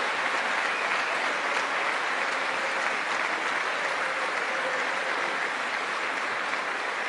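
A large audience applauding steadily in a long ovation, easing off gradually toward the end.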